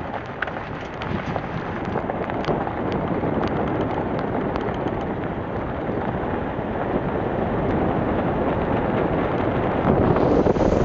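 Wind buffeting the microphone over the steady running noise of a Jeep driving a rough gravel trail, with a few faint ticks.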